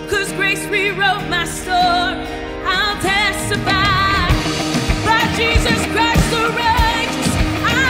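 A worship band playing and singing: women's voices over guitars and keyboard, with the drums coming in about halfway through and the full band building.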